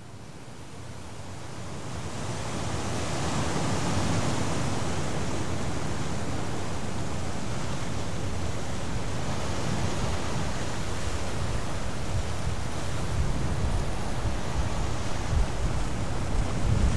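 Wind blowing: a steady rushing noise that fades in over the first few seconds, with low buffeting on the microphone growing near the end.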